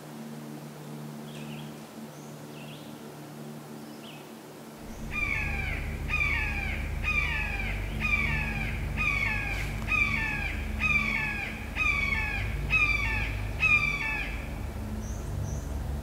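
Red-shouldered hawk calling a steady series of about ten loud, down-slurred kee-ah screams, roughly one a second, starting about five seconds in.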